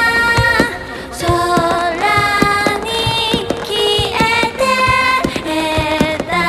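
Music: a song with a high sung melody of held notes over short percussive hits.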